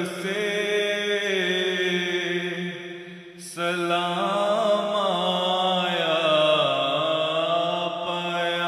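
A man's voice singing a naat in long, drawn-out, wavering notes with no clear words. There is a short break about three and a half seconds in.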